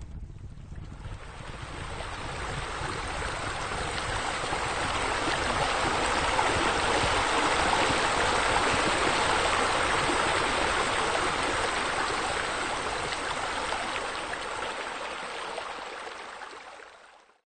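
Running water of wall spouts pouring into a pool, an even splashing that swells to its loudest about halfway through, then fades away and cuts off suddenly near the end.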